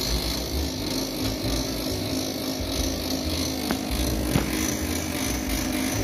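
Toshiba e-Studio 2010AC colour copier running with a steady mechanical grinding noise from inside, the sign of a faulty intermediate transfer belt (ITB) cleaner.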